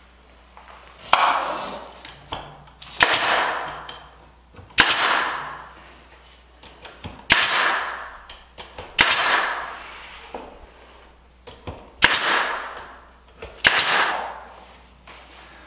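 Pneumatic trim nailer firing about seven times, every one and a half to three seconds, driving nails through wooden window trim. Each shot is a sharp crack that trails off quickly.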